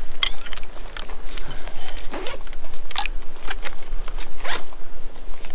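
Hunting gear being handled and packed: a run of short, irregular rustles and zipper-like scrapes, with a steady low hum underneath.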